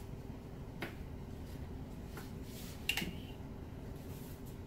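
Light clicks of plastic paint cups being handled on a work table: a faint click about a second in and a louder, sharper one about three seconds in, over a steady low hum.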